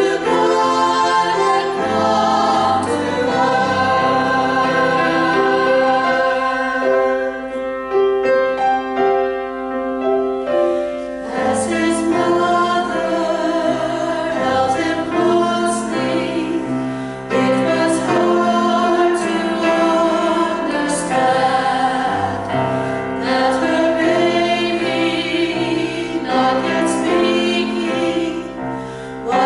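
Female vocal trio singing a Christmas song in three-part harmony, with low sustained accompaniment notes underneath.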